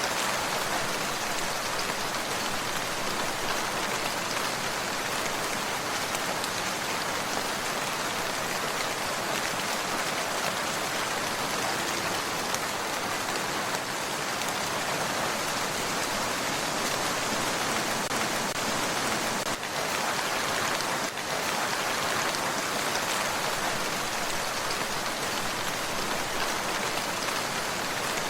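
Steady rain falling and pattering on a surface, an even hiss of many drops that does not change.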